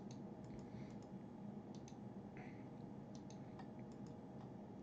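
Computer mouse clicking at irregular intervals, over a faint steady hum.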